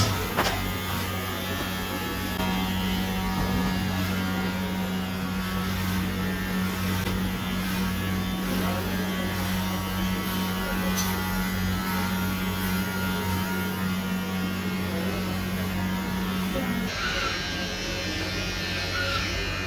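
Electric hair clippers running with a steady buzz as they cut hair short; the tone of the buzz changes near the end.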